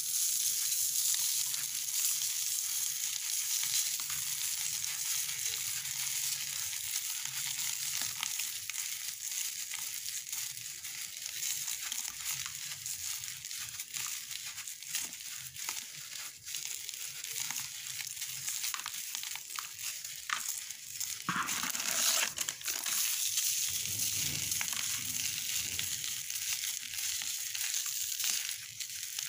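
A ball of dry sand and cement being crumbled between the fingers, its grains falling onto a plastic sheet: a dense, steady crackling hiss of fine grit. It grows fuller and louder about two-thirds of the way through.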